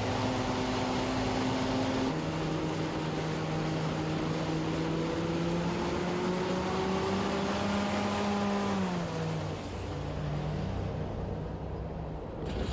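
Freightliner Cascadia truck's diesel engine pulling under load. Its note drops sharply about two seconds in with an upshift, then climbs steadily as it gathers speed. It falls away and quietens about nine seconds in.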